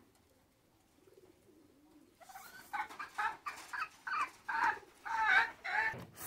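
A chicken clucking: a run of about eight loud, quick clucks starting about two seconds in.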